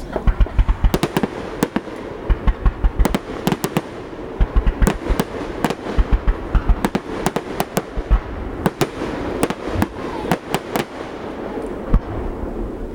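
Fireworks display: a rapid, irregular string of sharp bangs and crackles, thinning out near the end.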